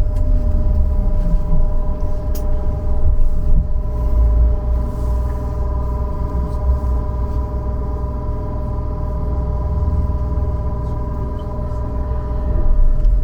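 Trolleybus running on electric drive: the traction motor's whine falls in pitch as it slows, then a steady hum from its electrical equipment over low rumble, and near the end the whine starts rising again as it pulls away.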